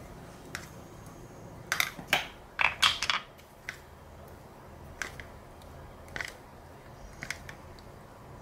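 A steel spoon tapping and clicking against a plastic bowl and the plastic moulds of a microwave idli stand while ladling semolina batter. The light clicks are scattered, with a quick cluster of louder ones about two seconds in.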